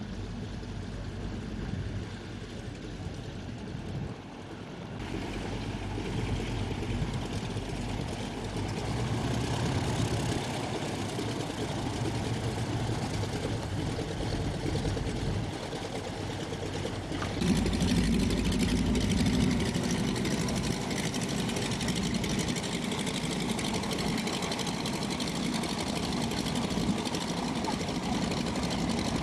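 Piston engines of vintage twin-engine propeller aircraft running as they taxi past. The steady engine noise gets louder about five seconds in and again about seventeen seconds in.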